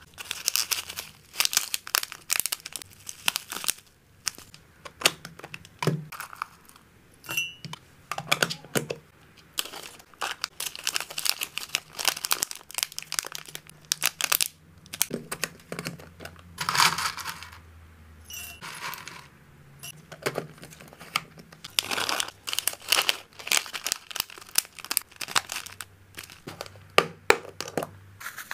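Clear plastic zip-lock bags crinkling in the hands as they are filled with dried herbs and hamster snacks, in many short rustles and crinkles.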